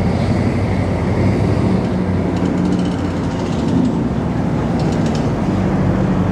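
Steady low drone of engines idling, holding an even pitch, with a few faint clicks about five seconds in.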